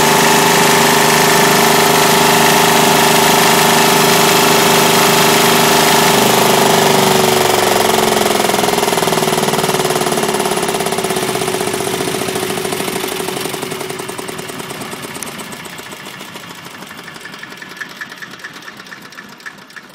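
Hatz E95 air-cooled diesel engine running at a steady speed, then about six seconds in it is shut off and runs down, its pitch falling and the sound fading over several seconds to a faint ticking near the end.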